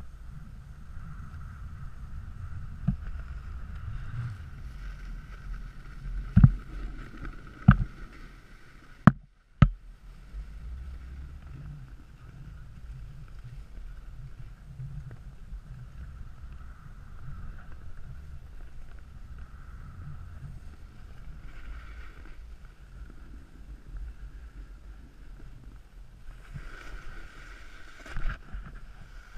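Snowboard sliding and scraping over packed snow as a steady low rumble, with a few sharp knocks in the first ten seconds.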